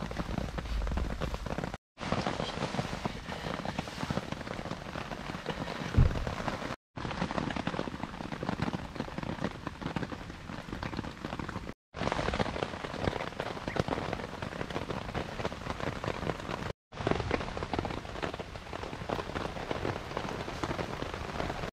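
Steady rain falling on a camp tarp overhead, a dense even hiss that drops out briefly four times. There is a single low thump about six seconds in.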